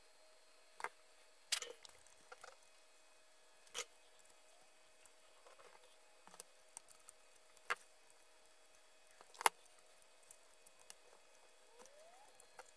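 Irregular light clicks and taps of pliers and component leads being worked in the wiring of a small tube tester's chassis, with a few sharper snaps, the loudest about three quarters of the way through, over a faint steady hum.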